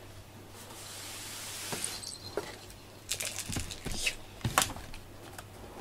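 Rustling and light knocks of cat toys being handled and tossed, with one sharper knock about four and a half seconds in. A soft hiss rises and fades over the first two seconds.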